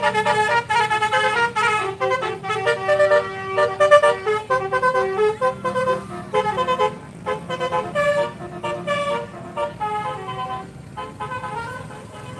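Bus 'telolet basuri' multi-tone horn playing a quick tune of shifting notes over a low rumble, getting quieter in the second half.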